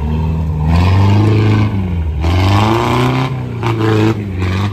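Off-road 4x4 vehicle's engine revving, its pitch rising and falling several times.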